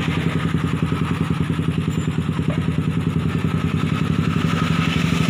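Suzuki Satria FU motorcycle's single-cylinder four-stroke engine idling steadily with an even, fast exhaust pulse.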